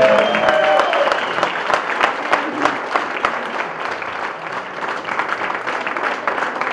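An audience clapping steadily.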